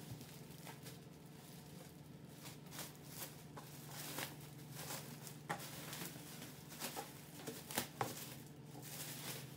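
Clear plastic wrapping crinkling and rustling in irregular bursts as a chair seat is handled and unwrapped, over a steady low hum.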